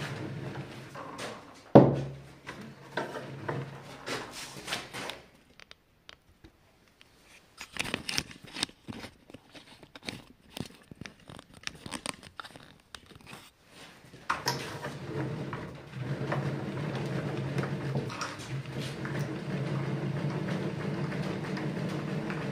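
A machine motor humming steadily, with a single loud thunk about two seconds in. The hum drops out in the middle, leaving scattered clicks and knocks, and comes back about two-thirds of the way through.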